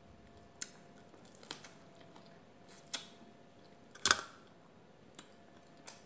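Close-up eating sounds of a person eating prawns: scattered sharp mouth smacks and crunches while chewing, about six in all, the loudest about four seconds in.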